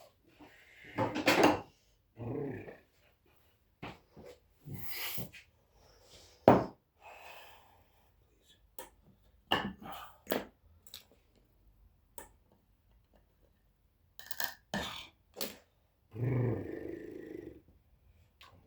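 Irregular knocks, clicks and rustling of hands handling tools and work at a bench, with quiet gaps between.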